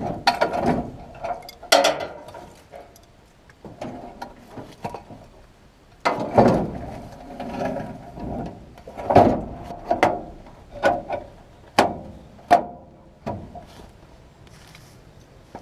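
Irregular knocks, clicks and clattering from metal tools and equipment being handled, with several sharp single clicks spread out over the stretch.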